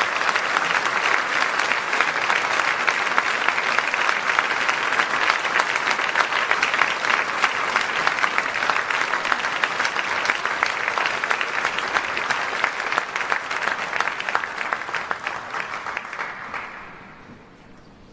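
Theatre audience applauding: dense, steady clapping that dies away near the end.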